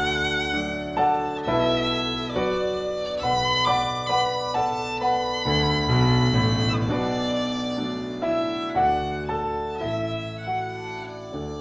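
Violin playing a lyrical melody of held notes with vibrato over Steinway grand piano accompaniment, the music growing gradually softer toward the end.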